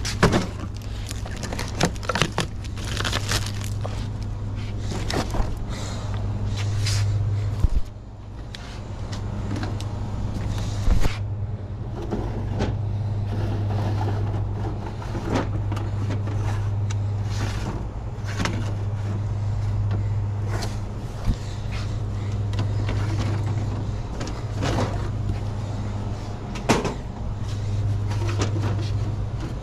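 Plastic drink bottles and their shrink-wrap being handled and set onto metal store shelving: crinkling plastic and frequent sharp clacks and knocks, over a steady low hum.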